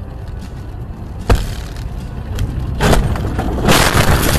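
Car crash heard from inside the car: steady low road rumble, a sharp bang about a second in, another heavy impact just before three seconds, then a long stretch of loud crunching and scraping.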